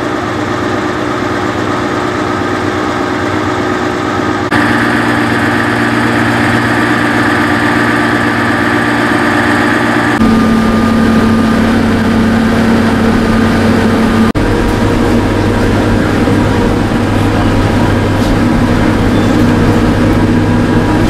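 Engine of a vintage Brill railcar idling steadily. The hum shifts abruptly in pitch and level twice, and is heard from inside the passenger car near the end.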